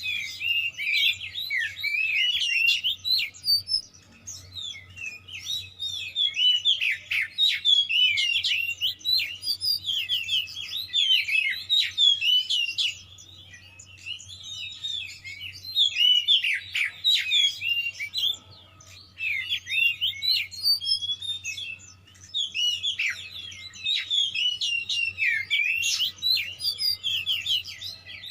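Oriental magpie-robin (kacer) singing a loud, rapid string of varied chirps, whistles and sweeping notes. The song comes in bursts of a few seconds with brief pauses between phrases, over a faint steady hum.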